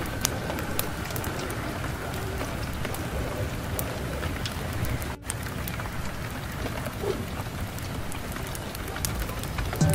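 Steady rain falling, an even hiss with scattered sharp drop clicks; it cuts out for a split second about halfway through.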